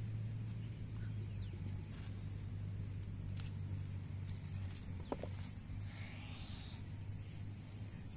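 A low steady hum, with faint rustles and small ticks of grass and weeds as wild mushrooms are picked by hand.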